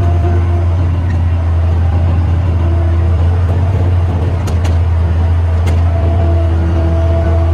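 Challenger 875C tracked tractor's six-cylinder diesel engine running steadily under the load of a scarifier, with a deep constant hum. A few brief sharp clicks sound a little past the middle.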